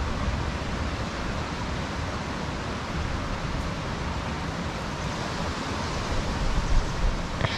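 Wind on the action camera's microphone: a steady rushing hiss over an uneven low rumble.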